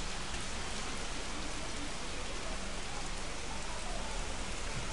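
Heavy rain pouring down on a flooded street: a dense, steady hiss.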